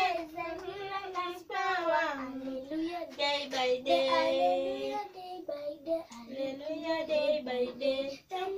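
A child singing a tune without pause, with long held notes and gliding pitch.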